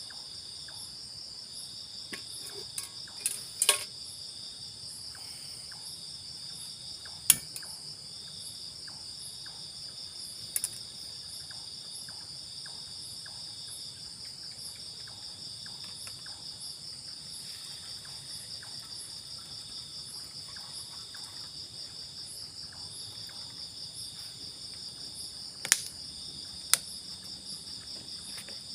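Forest insect chorus: a steady, high-pitched, fast-pulsing trill, with a second, slightly lower insect call starting and stopping in phrases. A few sharp knocks or clicks break in, the loudest about seven seconds in and two near the end.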